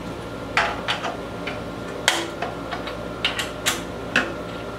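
Sharp metal clicks and clinks, about a dozen at irregular intervals, as a hand tool works on the chainsaw's side cover and bar mount.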